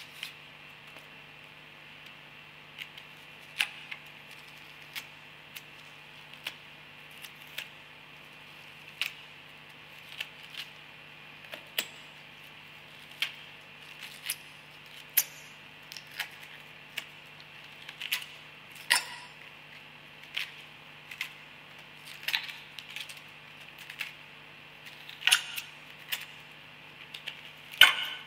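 Dry onion skin crackling and tearing as it is peeled by hand: irregular sharp crackles, sparse at first and coming thicker and louder in the second half, over a steady low hum.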